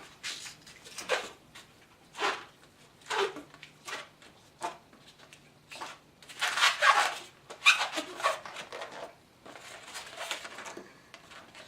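Latex modelling balloons squeaking and rubbing as they are twisted by hand, in about ten short, irregular squeaks and scrapes.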